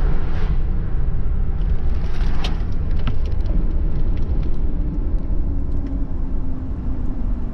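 Vehicle on the move: a steady low road rumble with a faint engine hum and a few light rattles.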